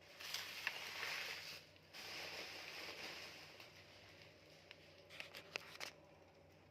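Parcel packaging being handled and torn: two stretches of rustling and tearing, then a few sharp clicks about five seconds in.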